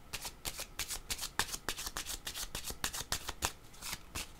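A deck of oracle cards shuffled by hand: a quick run of crisp card slaps and flicks, several a second, thinning out near the end.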